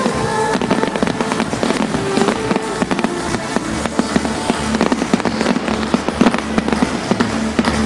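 Fireworks display: a dense run of quick bangs and crackles from many shells bursting one after another.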